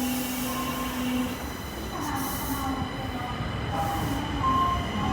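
Osaka Metro Midosuji Line train running through the station, with wheels squealing in short high tones over the rumble. A low steady tone cuts off about a second in.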